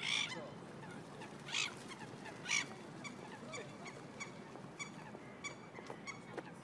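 Birds calling on a pond: a few loud, harsh calls in the first few seconds, then a run of short, sharp calls about two or three a second.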